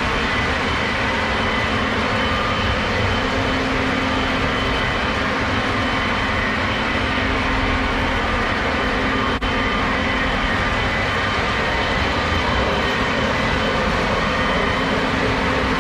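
Several Lionel O gauge model trains running at once, a steady rumble of wheels on track and locomotive motors, with a momentary dropout about nine seconds in.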